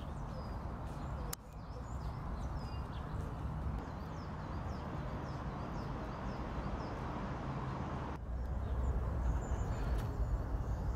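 Small birds chirping, short high calls repeated many times, over a steady outdoor background hiss and rumble. The background changes abruptly twice, once about a second in and again near the end.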